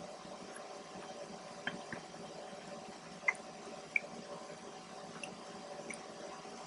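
Quiet wet chewing and mouth sounds of someone eating fava beans and pita close to the microphone, with a few short sharp smacks or clicks, over faint steady room hum.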